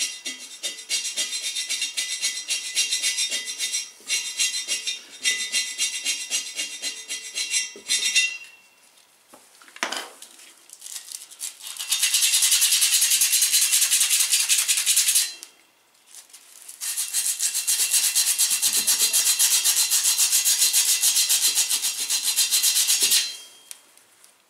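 Paint being scraped and rubbed off the steel of an empty propane bottle by hand, in quick back-and-forth strokes. The strokes come in three spells with short pauses, the last two louder and more even than the first.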